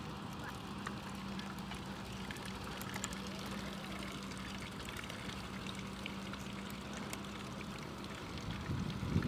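Steady outdoor background noise with a faint, steady low hum, and a voice starting near the end.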